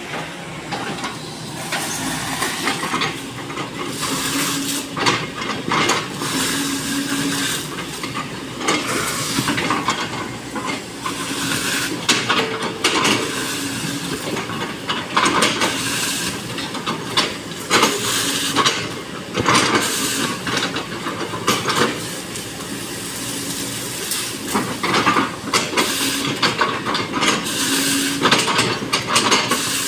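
SANY SY215C hydraulic excavator running under load while its bucket breaks up a felled oil palm trunk, with frequent cracking, crunching and scraping of wood and fronds over the engine and hydraulics.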